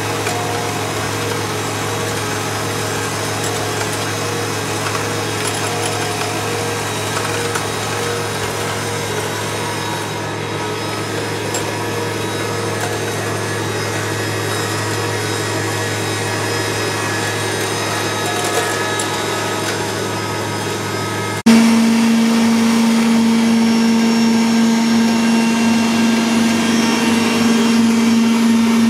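Electric kitchen mixers running steadily: a hand mixer beating egg yolks with sugar and a Bosch stand mixer whipping egg whites. About three-quarters of the way through, the hum switches abruptly to a louder, higher, steadier tone.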